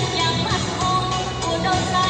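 Upbeat pop dance song: a singer over a steady beat.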